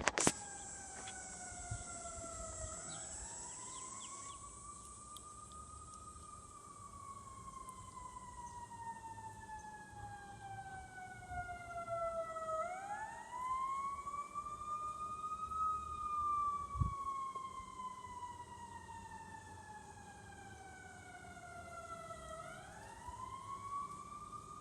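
Fire truck siren wailing slowly: the pitch rises quickly three times, each time sliding slowly back down over about ten seconds.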